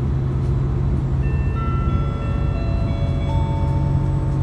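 Onboard announcement chime, a short melody of held bell-like notes, starting about a second in over the steady low drone of a diesel limited-express railcar pulling away.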